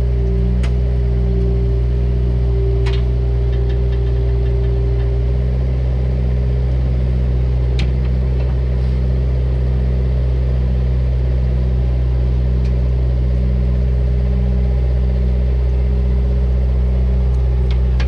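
Bobcat 331E excavator's diesel engine running steadily, with a few sharp light clicks here and there and a small cluster of them near the end.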